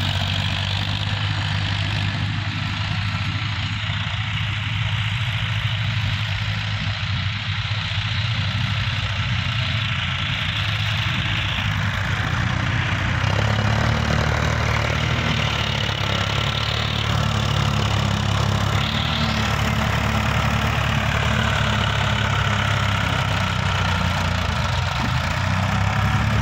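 Farmtrac 45 tractor's diesel engine running steadily as it pulls a rear levelling blade through sand. The engine note shifts slightly about halfway through.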